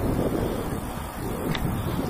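Wind buffeting the microphone of a handlebar-mounted camera on a moving bicycle: a low, gusting rumble, with a faint click about one and a half seconds in.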